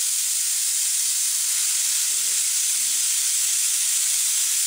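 A steady, high-pitched hiss, even in level throughout.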